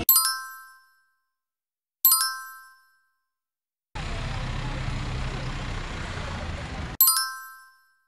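A bright chime sound effect dings three times, near the start, about two seconds in and near the end, each ring dying away within about a second. Between the second and third dings, a few seconds of steady background noise with a low hum.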